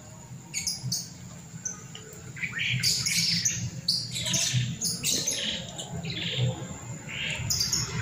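Caged birds in an aviary, lovebirds among them, giving many short high chirps, sparse at first and coming thicker from a few seconds in.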